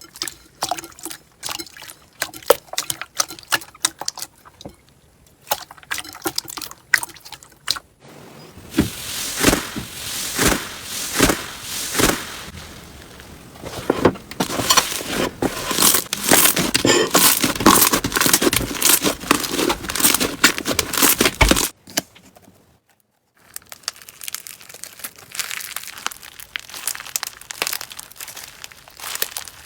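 Slime being squeezed, stretched and pressed by hand, giving rapid crackling and popping clicks. The crackling is sparse at first, then dense and continuous for most of the middle, with a brief silent break about three-quarters of the way through before sparser crackling resumes.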